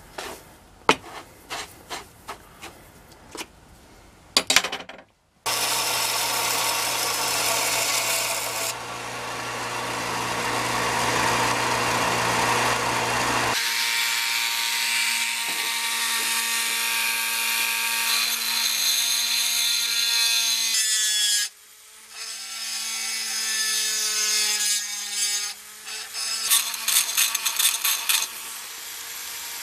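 Vermiculite granules rattling and clicking as they are stirred and tipped in a tub. Then, about five seconds in, a small rotary power tool runs almost continuously, grinding on the cast-iron body of an Acme staple binder. It changes to a steady whine partway through and stops briefly about two-thirds of the way in.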